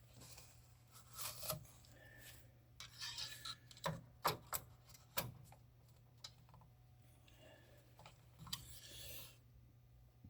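Faint handling sounds of topping up a snowblower engine's oil: rubbing and rustling, with a few sharp clicks about four to five seconds in.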